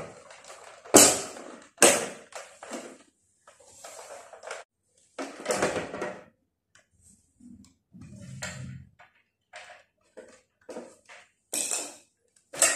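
Tower fan's plastic housing being pried open and lifted off: a run of sharp, irregular plastic snaps and knocks as the locking clips give way and the shell clatters against the frame.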